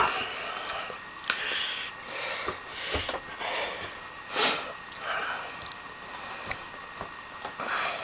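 A person sniffing close to the microphone, loudest about four and a half seconds in, among soft breaths and a few small knocks.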